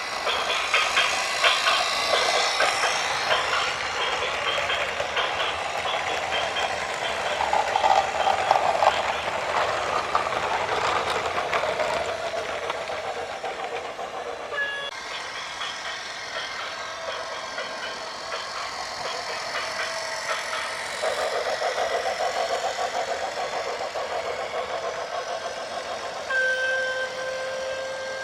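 Noise of working heavy vehicles and machinery, with an abrupt change halfway through. Near the end a horn sounds one steady held note for about two seconds.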